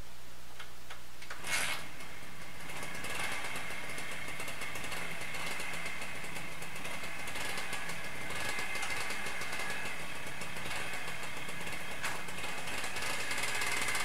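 Honda MBX 50's two-stroke single-cylinder engine catching with a short burst about a second and a half in, then idling steadily with a high buzzing tone.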